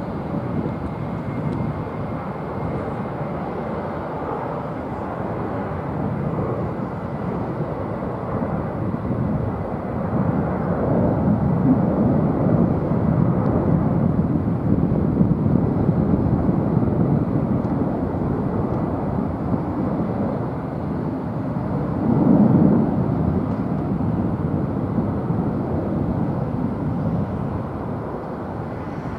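Jet noise of a Boeing 767-400ER's twin General Electric CF6-80C2 turbofans at takeoff power as the airliner climbs out: a steady deep rumble that grows louder towards the middle, with a brief swell a little past two-thirds through.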